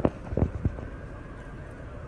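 Three sharp knocks within the first second, the loudest about half a second in, over steady outdoor background noise.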